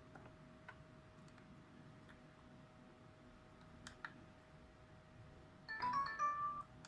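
Mobile phone ringtone preview: a few faint clicks, then about five and a half seconds in a quick run of electronic notes plays for about a second and cuts off. A faint steady tone hums underneath.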